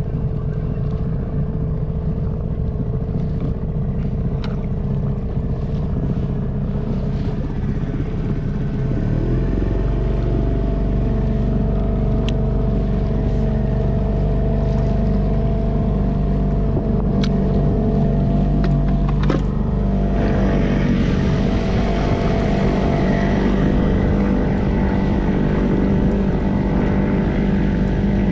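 Small boat's outboard motor running steadily under way, its note shifting and getting a little louder about nine seconds in. Water rushes and splashes against the inflatable hull, more so in the second half.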